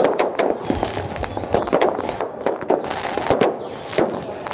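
Aerial fireworks display going off in a dense, irregular run of bangs and crackles.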